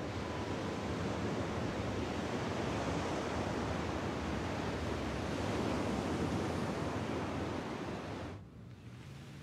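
Sea surf: a steady rushing wash of waves on a shore, which cuts off suddenly near the end.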